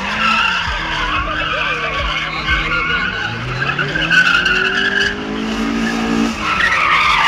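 Car tyres squealing on asphalt as cars drift, a steady high-pitched screech. Partway through, an engine revs up, rising in pitch, and drops off about a second before the end.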